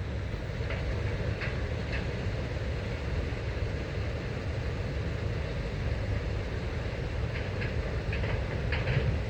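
Freight train of empty ex-quarry wagons rolling slowly past, wheels clicking over rail joints in short groups near the start and again near the end, over a steady low rumble.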